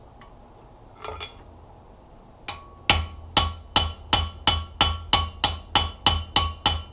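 Hammer blows setting a red-hot rivet in a pair of blacksmith's tongs on the anvil. After a few light taps, a steady run of ringing strikes starts about three seconds in, about three a second.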